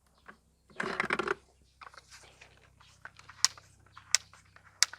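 Handling noise: a short rustle about a second in, then a run of scattered sharp plastic clicks and taps, the loudest few near the end.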